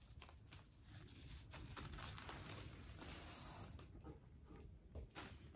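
Faint rustling and scraping of fabric and paper: a felt dust bag being opened and a paper-wrapped handbag drawn out of it, with a longer swish about three seconds in.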